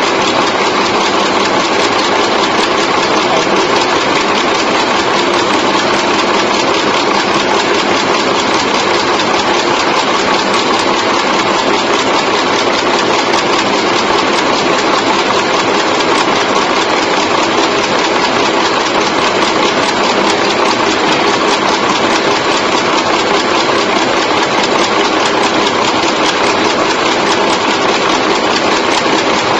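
Automatic chewing gum machine running at speed: a loud, steady, fast mechanical clatter.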